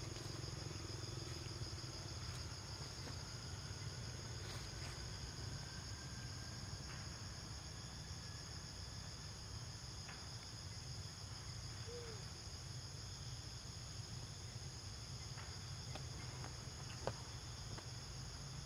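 Steady, high-pitched chorus of insects, held at an even level throughout, over a low steady rumble, with one sharp click near the end.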